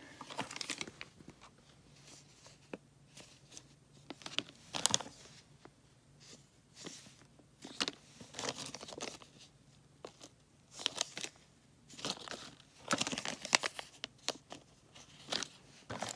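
Small clear plastic parts bags crinkling and rustling in irregular short bursts as a hand picks through them inside a cardboard box.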